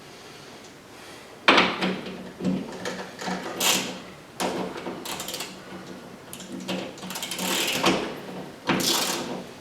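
Irregular clunks, rattles and scrapes from tools and hardware being handled, about eight of them.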